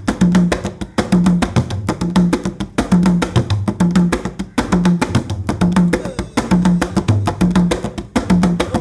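Giriama drum music: fast, dense drum strokes with sharp, wood-block-like clicks, over a repeating pattern of two alternating low notes.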